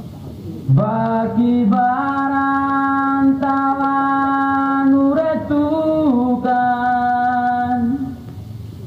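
A single voice singing a slow, chant-like song in long held notes. It comes in about a second in and holds one note for several seconds, then steps up and slides back down. It stops shortly before the end.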